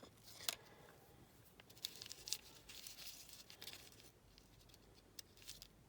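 Faint light clicks and short rustles of small die-cast toy car parts being handled and pressed into place.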